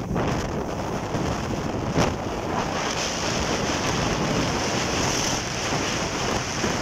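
Motorboat with a 115 hp outboard running at speed over open water: wind buffeting the microphone and water rushing past the hull. There is a single sharp knock about two seconds in, and a high hiss grows stronger from about three seconds in.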